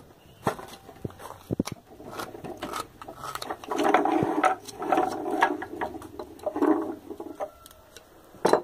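Small knife scraping and shaving a wooden ground-dove (rolinha) bird call by hand, in repeated short strokes with sharp little clicks of the blade on the wood.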